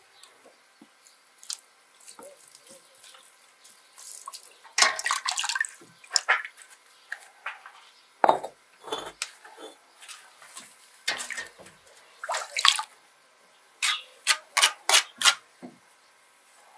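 Bricklaying with wet refractory mortar: a steel trowel scraping and slapping mortar onto firebricks, with bricks knocking as they are handled and set. Near the end there is a quick run of about five short trowel strokes as mortar is spread on the face of a brick.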